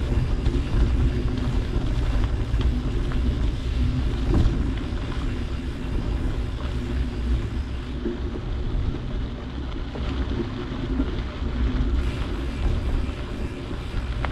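Steady low rumble of tyres rolling over a rough dirt road, with wind buffeting the microphone and a sharp jolt about four seconds in.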